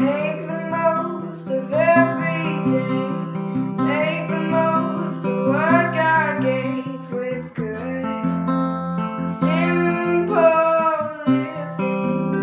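Background music: strummed acoustic guitar with a melody line rising and falling over it.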